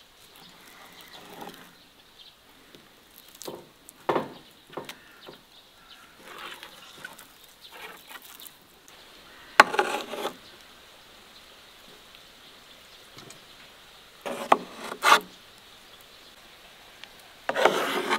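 Metal spoon scraping and scooping thick cooked cherry plum purée against a wide metal pan, in a series of separate strokes, a few of them louder.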